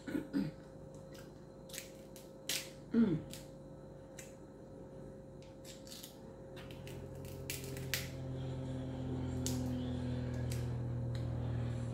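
Crab leg shells being cracked and picked apart by hand: a scatter of sharp cracks and snaps. About six seconds in, a low steady hum comes in and grows louder.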